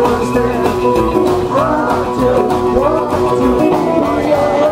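Live rock 'n' roll band playing: upright double bass keeping a steady beat under guitar, with a singer at the microphone.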